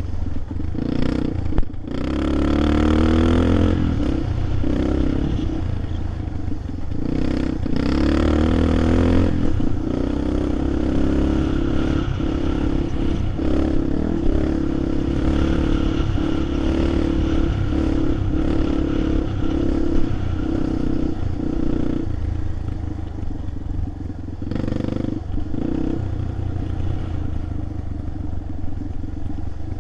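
A vehicle engine running steadily, its pitch rising and falling as the revs change, with rattling over rough ground.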